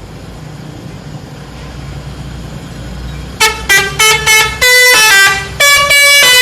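A bus's telolet horn, a multi-tone musical air horn, playing a quick tune of short toots and longer held notes at changing pitches, starting about halfway through. Beneath it, the low, steady rumble of the bus engine.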